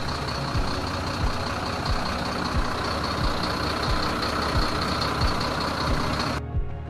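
Bharat Benz 2523 tipper truck's diesel engine running steadily while the hydraulic hoist tips the load body up, with a faint steady whine over the engine. The sound cuts off suddenly near the end.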